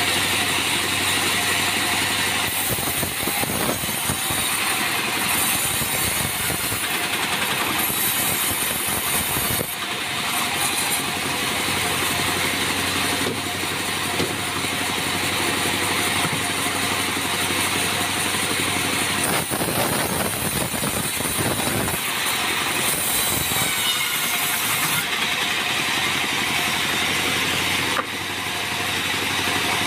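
Sawmill bandsaw running steadily, its blade cutting through an acacia log, over a constant machine drone. The sound dips briefly near the end.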